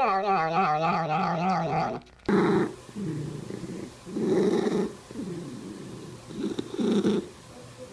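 A cat's long pitched call slides downward and cuts off about two seconds in, followed by a string of short, low, rough cat vocalisations with pauses between them.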